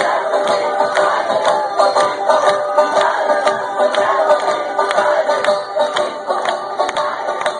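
Acoustic guitar strummed in a steady rhythm, with a group of voices singing along.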